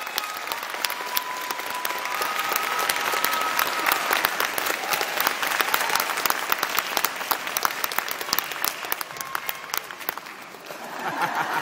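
Concert audience applauding at the end of an orchestra piece: dense, steady clapping that dips briefly and then swells again near the end.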